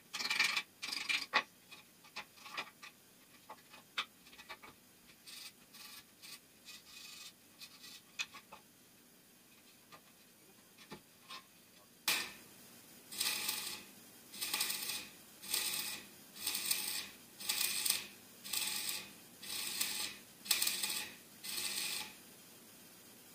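Light clicks and taps of steel square tubing being handled, then a run of about ten short bursts of MIG welding crackle, roughly one a second, as the joints of the steel frame are stitch-welded.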